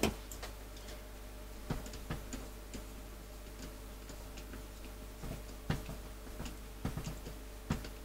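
Scattered light clicks and taps of plastic parts being handled as a mains cable and its clamp are pressed into a power tool's housing, over a steady low hum.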